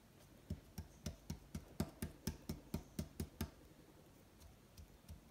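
Hands tapping and patting a small fondant star as it is coated in gold sugar: a quick, even run of light taps, about four a second for some three seconds, then a few fainter taps near the end.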